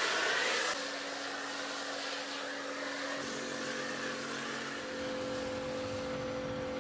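Kärcher K7 pressure washer spraying snow foam through a foam cannon: a steady hiss of spray, which drops suddenly to a softer level under a second in, over a faint steady drone.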